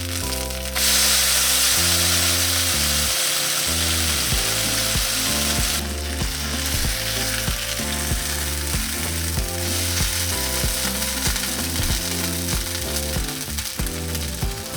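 Okonomiyaki batter frying in hot oil in a pan, a loud hissing sizzle that starts abruptly about a second in, with rapid small ticks and clicks. Background music plays throughout.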